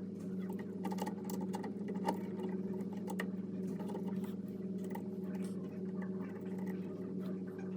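Small clicks and light taps of a small motor and its fasteners being handled and fitted into a wire bonder, over a steady electrical hum.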